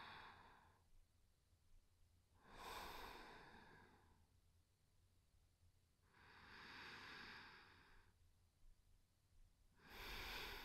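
Faint, slow breathing by a woman: soft airy breaths about every three to four seconds, each swelling and fading over about a second, with quiet between.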